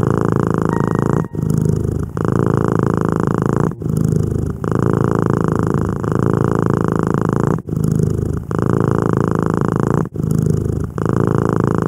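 Tabby cat purring loudly and steadily, with a short break at each turn of breath about every two and a half seconds.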